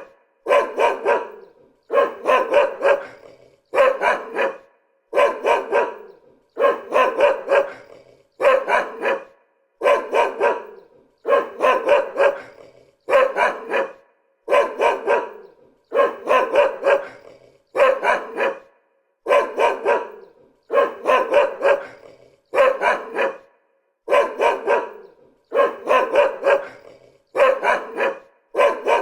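A dog barking in quick runs of several barks, one run about every second and a half, repeating evenly throughout.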